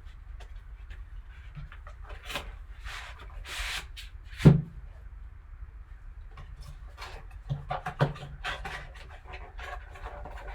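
Hands handling card packaging: intermittent rustling and scraping, a sharp knock about four and a half seconds in, and a cluster of lighter clicks and taps later on.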